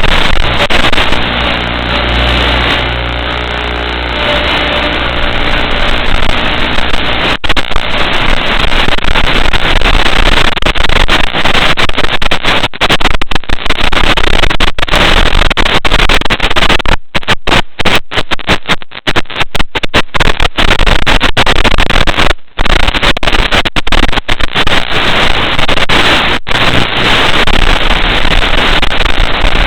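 Loud steady hiss with no clear tones, cut by many brief dropouts to silence, typical of the static recorded through a Nano QX FPV's analog video receiver as the signal breaks up.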